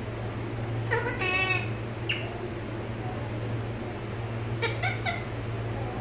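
Rose-ringed parakeet calling: a drawn-out call with a wavering pitch about a second in, a short note near two seconds, and a few quick short calls near five seconds, over a steady low hum.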